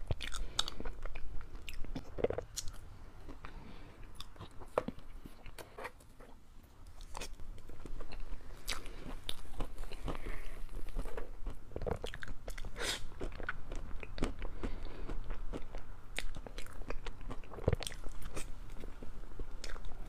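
Close-miked chewing and mouth sounds of a person eating soft chocolate mousse cake with jam, with many scattered sharp clicks. The eating sounds ease off for a few seconds about a quarter of the way in, then pick up again.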